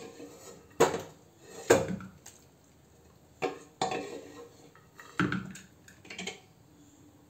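A serving spoon clanking and scraping against the inside of a pressure cooker as the last of the cooked chana dal and bottle gourd is scooped out: about six sharp metallic knocks a second or so apart, with softer scraping between them.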